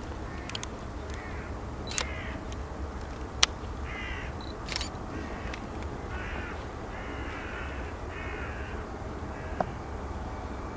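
Crows cawing, a run of short harsh caws about once a second, over a steady low rumble. A few sharp clicks cut through, the loudest about three and a half seconds in.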